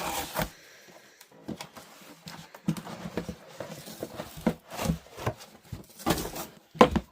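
Intermittent rustling and crinkling of book-mailer packaging being handled, with light knocks, in short irregular bursts.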